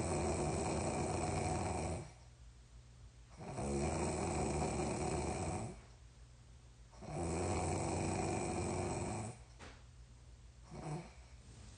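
A person snoring in sleep: three long snores, each lasting about two seconds and coming about every three and a half seconds, then a brief, quieter sound near the end.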